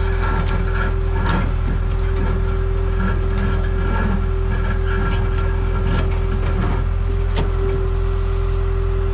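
New Holland skid steer's engine running steadily under load while its hydraulic auger attachment bores a post hole in stony ground, with a steady whine and a couple of sharp clicks.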